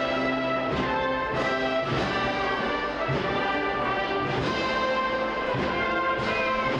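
Wind band (banda de música) playing a Holy Week procession march: a brass melody over held chords, with drum strokes.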